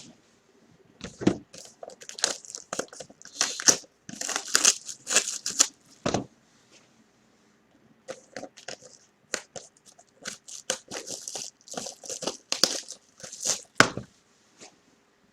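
Plastic shrink-wrap being torn off and crinkled from sealed trading-card boxes: a run of short crackling rips and rustles, with a short pause about seven seconds in.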